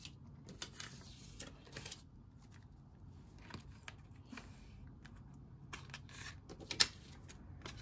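Faint handling of paper banknotes and a soft clear PVC zipper envelope in a ring binder, with light rustles and crinkles and a few small clicks. One sharper click comes near the end.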